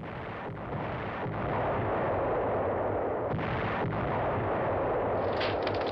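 War sound effect: a continuous rumble of artillery fire and explosions, with a few sharper blasts, and sharp crackling starting near the end.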